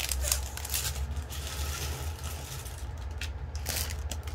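Irregular light rustling and clicking as a diamond painting canvas is handled close to the microphone, over a low steady hum.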